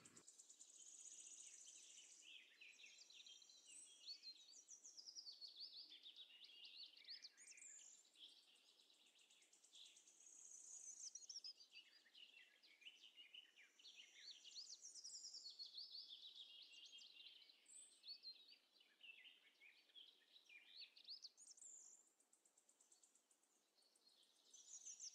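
Faint birdsong: birds chirping and trilling in quick, high glides, going on and off in short phrases with no other sound.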